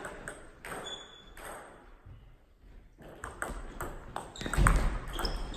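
Table tennis ball clicking off bats and table in a rally: a few ticks, a short pause, then a quick run of ticks from about three seconds in. A heavy low thud near the end, as a player lunges on the hall floor.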